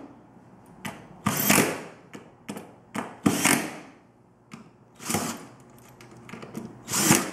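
Cordless drill-driver driving wood screws through the wall-bed frame's struts into pre-piloted holes, in four short bursts that each swell and then stop short, with small clicks and knocks between.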